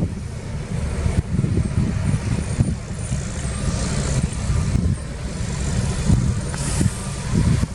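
Diesel engine of heavy earthmoving equipment running, a steady low rumble with uneven surges.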